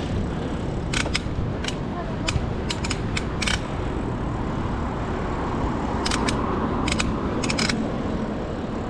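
Shimano bicycle gears shifting, with sharp clicks singly and in small clusters, over the steady rumble of the bike rolling along.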